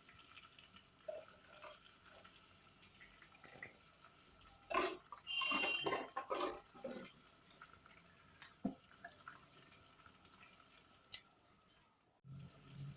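Quiet kitchen handling sounds at a pot of frying vegetables: scattered light clinks, then about five seconds in a short spell of clattering with a brief metallic ring.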